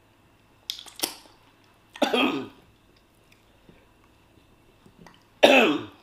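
A woman's put-on coughs, staged as a prank. Two short sharp coughs come about a second in, then a longer, louder cough at about two seconds, and the loudest one just before the end.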